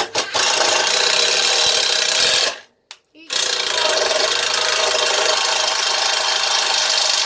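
Ryobi cordless impact driver driving a long deck screw into timber, its hammer mechanism rattling at full speed. It runs about two seconds, stops briefly as the trigger is released, then runs steadily again for about four more seconds.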